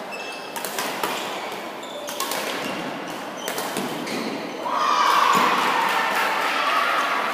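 Badminton rally in a large echoing hall: sharp racket-on-shuttlecock hits and footwork on the court floor. About two-thirds of the way in, spectators start shouting, louder than the play.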